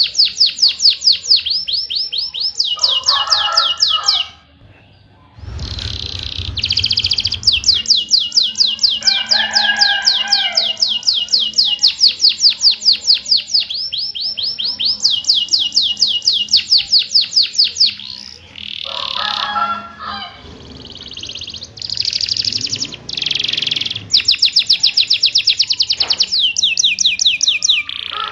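Domestic canary singing: long rolls of rapid, evenly repeated high chirps broken by a few lower warbled phrases, with a short pause about four seconds in.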